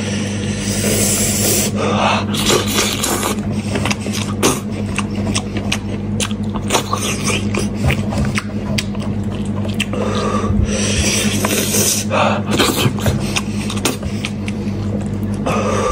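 Eating sounds: hands pulling and tearing meat and cartilage off a cooked head in spicy chili oil, with wet chewing, smacking and sucking, a dense run of irregular clicks and short noisy bursts. A steady low hum sits underneath.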